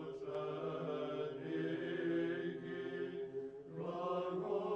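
Slow Orthodox church chant: voices holding long notes that shift in pitch every second or two, with a short dip a little before the end.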